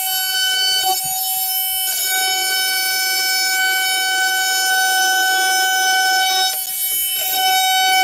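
Cordless power tool cutting through drywall: a steady high-pitched whine that dips briefly twice as the blade is worked along the cut.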